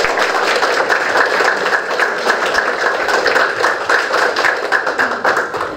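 Audience applauding: many people clapping together, dense and steady, dying away at the very end.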